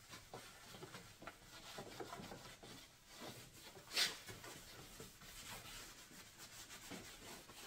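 Cloth wiping a yellowed plastic headlight lens with glass cleaner: a faint, irregular rubbing, with one louder brief swish about halfway through.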